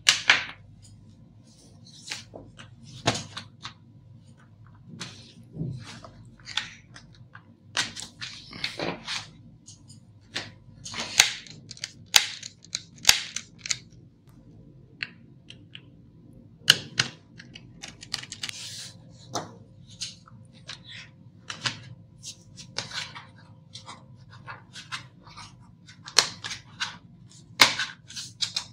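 Irregular clicks and knocks from a Lenovo ThinkPad T440's plastic case being handled and opened: a screwdriver working at the underside and the bottom cover being pushed and slid off.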